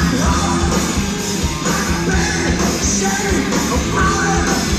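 Loud live grunge/punk rock band playing: distorted electric guitar, bass and pounding drums, heard on an audience recording in a ballroom.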